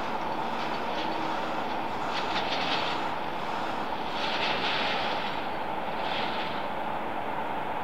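Jet engine noise from a Boeing 787-8 Dreamliner, a steady rushing drone with brief swells about two and four and a half seconds in.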